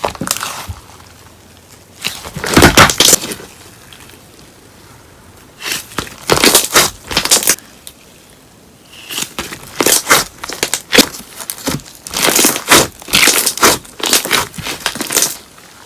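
Slime with paper clay mixed in being pressed and squished by hand, crackling in bursts of one to three seconds with short pauses between.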